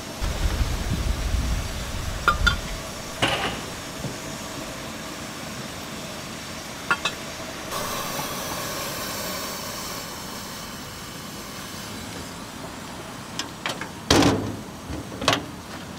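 Metal clinks and knocks from a street-food stall's steel cabinet, with a steady hiss for a few seconds in the middle. Near the end comes a loud clank, then a second, as the cabinet door is handled.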